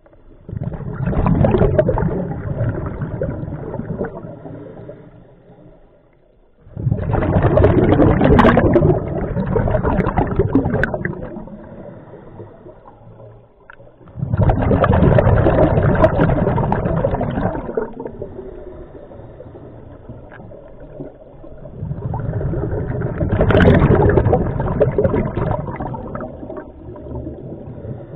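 Scuba regulator exhaust underwater: exhaled bubbles gurgling out in four long breaths about seven to eight seconds apart, with quieter pauses between them while the diver breathes in.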